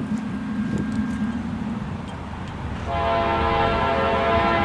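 A diesel locomotive's multi-chime air horn starts about three seconds in and holds one steady chord, louder than what came before. It sounds over a low steady rumble from the oncoming train.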